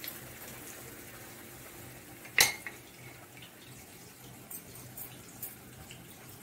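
Breaded bread cutlet deep-frying in hot refined oil in a kadai, a steady faint sizzle, with one sharp clink of dishware about two and a half seconds in and a few faint ticks later.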